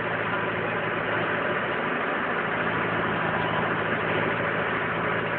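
Rastrojero utility vehicle's engine running steadily, with an even low hum and a dense wash of noise over it, heard from inside the cab.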